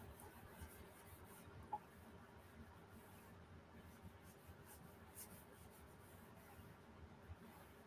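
Faint scraping of a felt-edged squeegee drawn over glued decoupage paper in repeated short strokes, pressing the paper down so it adheres.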